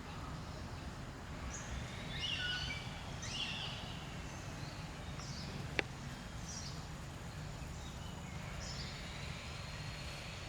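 Birds calling: short chirps and whistles repeat every second or so over a steady low background rumble, with a single sharp click about six seconds in.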